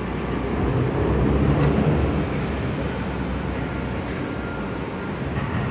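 City transit bus engine idling: a steady low rumble with a hum under it.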